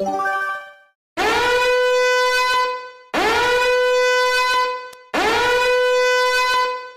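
Horn sound effect: three long, loud blasts, each scooping up into one steady pitch. They are preceded by a short falling run of notes that fades out.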